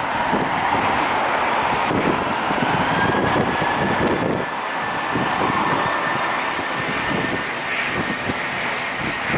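Jet engines of an Airbus A320-232 (IAE V2500 turbofans) at take-off power, a steady rush of jet noise with a held whine over it. Wind gusts buffet the microphone underneath.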